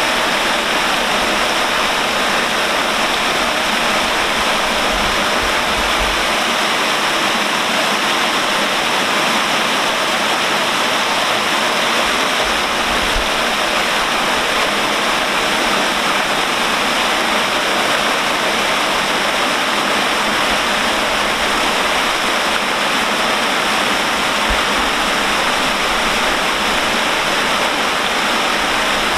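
Water falling in a curtain of streams off a flume bridge and splashing into the canal below: a loud, steady rush.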